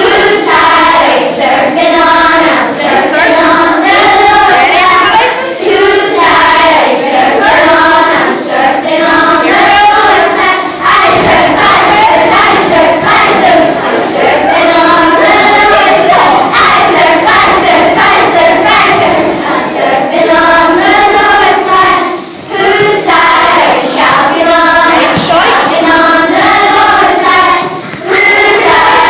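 A choir of primary-school children singing a song together, with short breaks between phrases.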